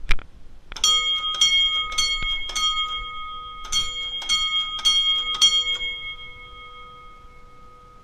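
A sharp click, then the fire alarm bells of a 1957-era IBM (Simplex) system striking out a coded 4-4 temporal pattern: two groups of four strokes about half a second apart, a short pause between the groups. After the last stroke the bells ring on and fade away.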